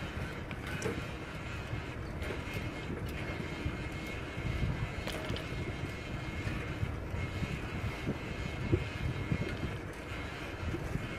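Wind buffeting the microphone and tyres rolling on a concrete path while a beach cruiser bicycle is ridden, a steady rumbling noise that rises and falls, with a few light clicks.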